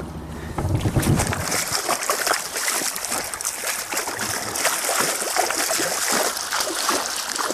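A hooked lenok thrashing at the water's surface right beside an inflatable boat: continuous splashing and slapping water, setting in about a second in.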